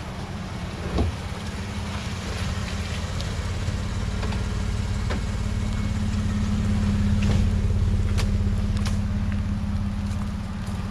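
Chevrolet pickup truck driving slowly past on a dirt trail, its engine running with a low steady rumble. The rumble swells to its loudest a little past halfway as the truck goes by, then eases as it pulls away, with a few sharp clicks along the way.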